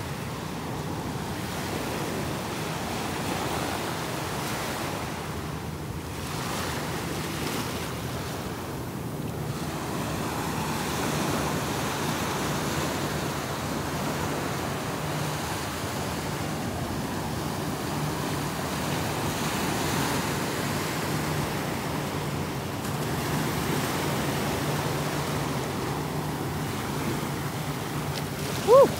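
Small ocean waves breaking and washing up on a sandy shore: a steady surf wash, with some wind on the microphone.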